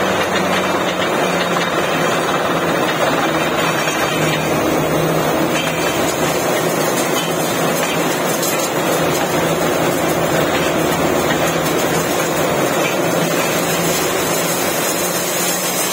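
Truck-mounted borewell drilling rig running steadily, its engine and air compressor driving the drill. Air blasts muddy spray and cuttings out of the borehole, giving a constant dense noise.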